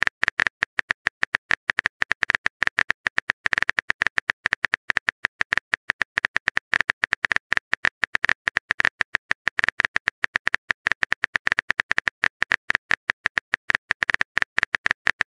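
Phone keyboard typing sound effect: rapid, uneven clicks, several a second, with short pauses between runs.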